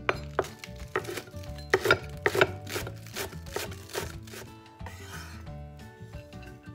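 Chef's knife chopping green onions on a wooden cutting board, quick knocks of the blade on the board about three a second, then a short scraping sound about five seconds in. Background music plays underneath.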